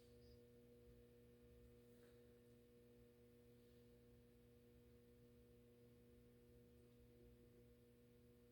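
FASCO State Fair ceiling fan's motor running at very low speed on a decade capacitor set near 3 µF, giving a faint, steady electrical hum.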